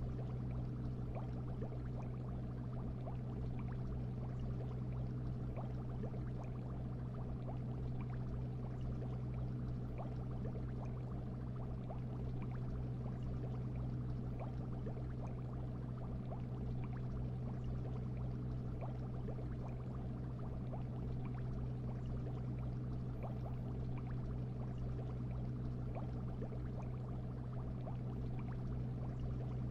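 Fish-tank ambience: a steady low hum with constant fine bubbling and trickling water.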